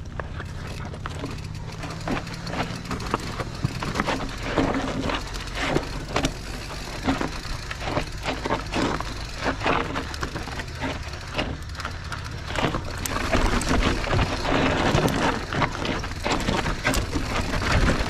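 Mountain bike rolling down a rocky, loose dirt trail: tyres crunching over stones and dirt while the bike rattles with many small, irregular knocks. It gets louder from about two-thirds of the way through.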